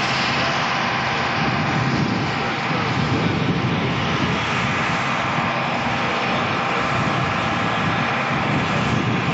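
Steady drone of an aircraft engine, with a few faint steady tones in it.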